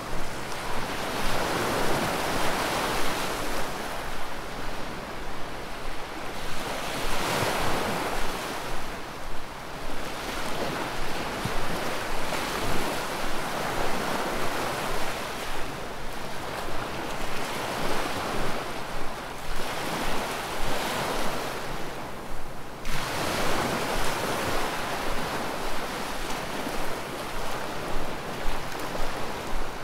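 Ocean surf: waves washing in, swelling and fading every few seconds.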